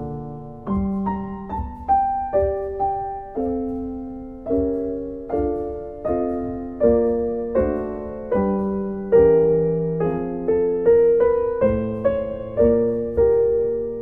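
Solo piano music: a slow, gentle piece of single notes and chords struck one after another, each left to ring and fade.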